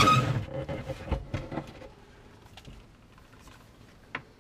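Power drill driving a 38 mm hole saw through icebox insulation, loud at first and winding down to a stop within the first two seconds. A few light knocks and clicks follow, the sharpest near the end.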